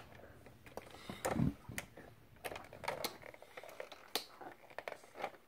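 Scattered clicks and light knocks of hard plastic parts as a Power Rangers Samurai Megazord toy playset is handled, with one duller thump about a second and a half in.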